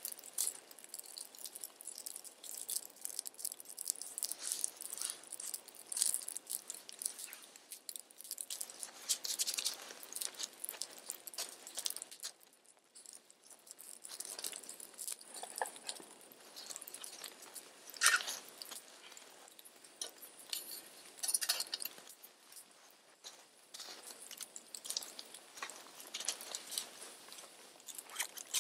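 Small fire of dry twigs and sticks crackling, with irregular snaps and pops and one louder knock about two-thirds of the way through.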